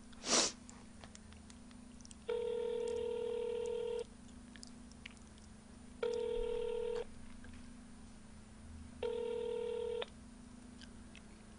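Phone ringback tone from a smartphone's speaker as an outgoing call rings: a steady beep sounding three times about three seconds apart, each about a second long, the first a little longer. A brief loud rustle about half a second in.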